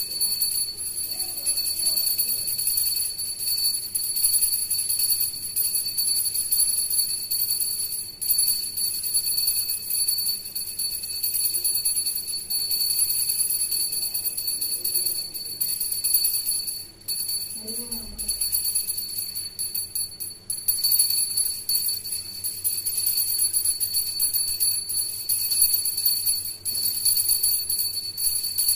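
Pooja hand bell rung without a break during the camphor aarti, a steady high-pitched ringing that wavers quickly in loudness.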